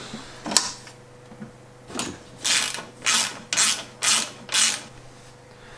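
Ratchet driver clicking in five short rasping bursts, about two a second, as the pivot bolt of a mountain bike frame's chainstay-to-seatstay linkage is undone, after a couple of single clicks.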